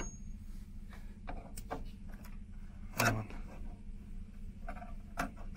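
Scattered light clicks and cracks, with one louder knock about three seconds in, over a low steady rumble: flaking body filler and rusted sheet metal being picked at by hand.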